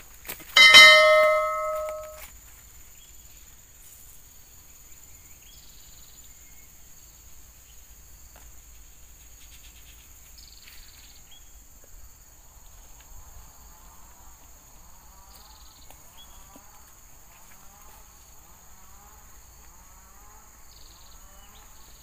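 Subscribe-button sound effect: a click and a bright bell chime about half a second in, ringing out for about a second and a half. After that there is only faint outdoor background, with soft repeated chirping from about halfway.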